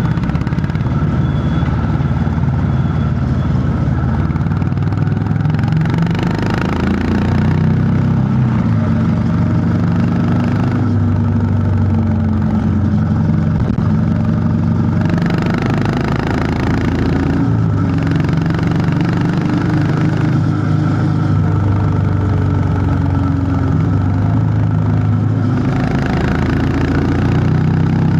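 Honda CB350 H'ness's air-cooled single-cylinder engine running on the move, its thump rising and falling gently in pitch with the throttle. Now and then a rush of hiss rises over it for a second or two.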